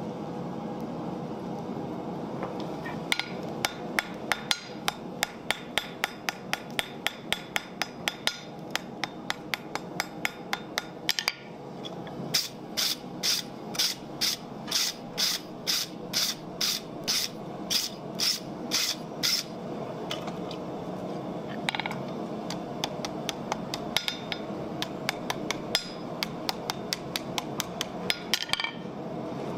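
Hand hammer striking a red-hot steel bar on an anvil, forging it in fast runs of blows. About halfway in, the blows turn louder and ring out, about two a second, before sparser strikes near the end. A steady rushing noise runs underneath.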